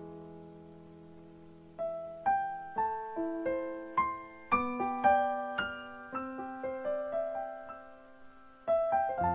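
Background music: a slow piano piece, a held chord fading away, then single notes played one at a time, with a fuller chord near the end.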